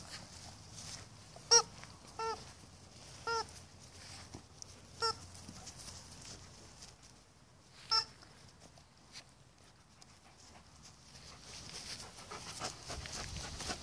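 Alaskan Malamutes yipping during play-fighting: five short, high yelps, spread over the first eight seconds or so.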